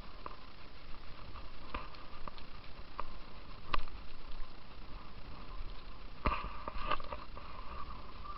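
Footsteps of people walking on a grassy moorland path, with a low rumble of wind on the microphone and a few sharp knocks from handling the camera.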